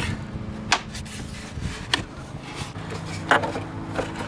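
Plastic air filter housing being handled and fitted back together, rubbing and scraping, with a few separate sharp clicks as its clips are snapped shut.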